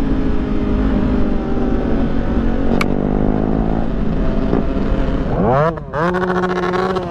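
Motorcycle engine running under way, its pitch climbing slowly, then dipping briefly about five and a half seconds in before revving up and down in quick swings, over a steady low rumble.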